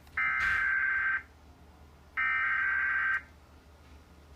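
Emergency Alert System SAME header: two bursts of the digital data tone, each about a second long and about a second apart. The bursts carry the coded alert type and counties for a tornado warning.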